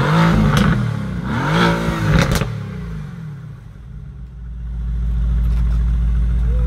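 Mercedes-AMG GT R's twin-turbo V8 revved twice while standing, each rev rising and falling in pitch with a sharp crack from the exhaust, then settling to a low steady idle.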